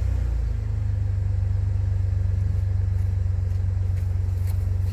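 Car engine idling steadily, a low rumble just after it has been started, settling into an even idle within the first half second.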